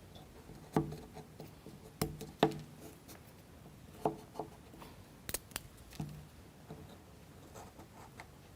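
Plywood model-kit pieces knocking and clicking together as they are handled and fitted by hand: about eight short, sharp taps at uneven intervals, with faint rubbing between them.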